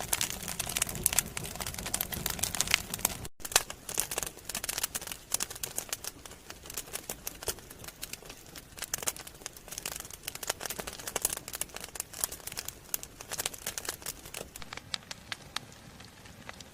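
Log campfire crackling, with irregular sharp snaps and pops.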